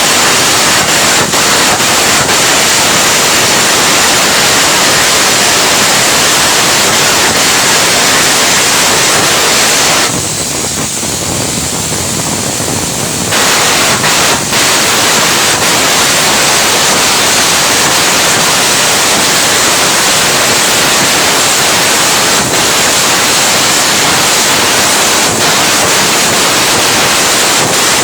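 Stick (arc) welding arc crackling and hissing steadily. It dips quieter for about three seconds roughly ten seconds in, then resumes.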